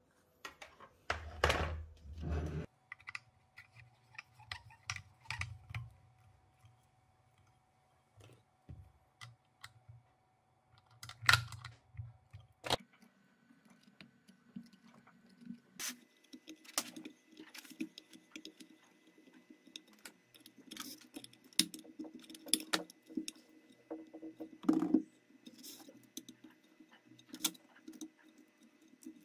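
Irregular light clicks, taps and rattles of small metal parts being handled as copper exhaust pipes with brass nut fittings are fitted onto a miniature V-twin model engine. The engine is not running.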